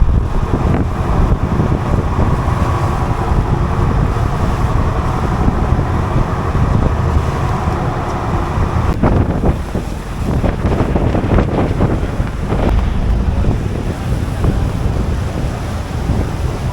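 Wind buffeting the microphone on a boat moving over the open sea, with the wash of waves. A faint steady tone runs under it and fades out about halfway through.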